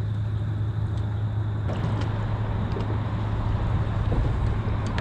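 Steady low hum with an even background rush and a few faint clicks.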